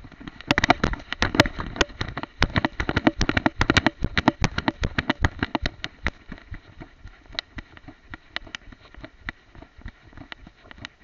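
Rattle and rub of a small camera strapped to a moving dog: quick, irregular clicks and knocks as it jolts with each movement, dense for about the first six seconds, then thinning out.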